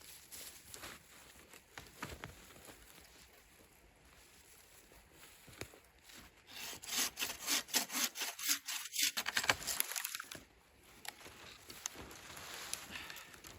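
Hand saw cutting through wood in a quick run of short, even strokes for about four seconds in the middle, with scattered knocks and rustles before and after.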